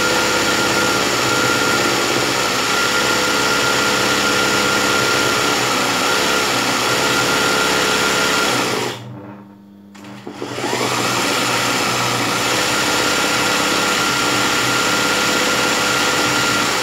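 Zigzag sewing machine running at speed, sewing a dense satin-stitch embroidery line, with a steady high whine. It stops about nine seconds in, is quiet for about a second and a half, then starts again and runs until near the end.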